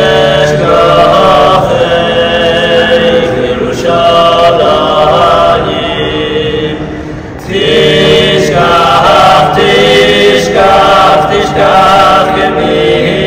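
A small group of men singing unaccompanied, in long held notes. The phrase eases off about six seconds in, and the singing swells again a second or so later.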